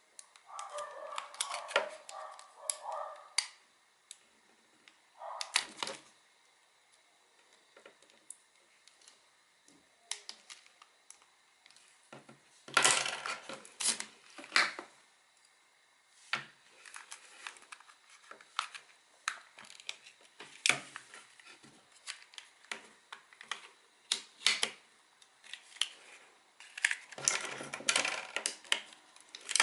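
Plastic barbecue-lighter casing being pried apart and handled: irregular clicks, snaps and short scraping bursts with quiet gaps between them.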